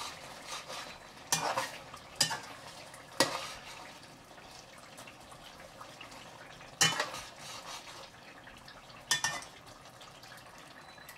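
Slotted metal spatula scraping and clinking against a metal cooking pot as a thick duck curry is stirred. There are a handful of sharp strokes, bunched in the first few seconds and then two more later, with a pause in between.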